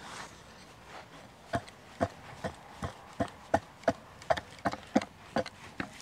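A rapid, even series of sharp knocks, about three a second, starting about a second and a half in and running for some four seconds.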